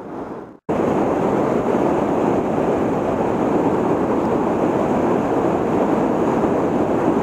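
Water rushing steadily over a low dam and churning through the whitewater below it. The sound starts abruptly less than a second in after a brief silence, then holds as a constant, even rush.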